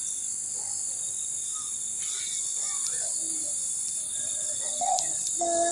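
Dusk village ambience: a steady high-pitched insect chorus, with faint scattered bird chirps and a louder pitched call starting near the end.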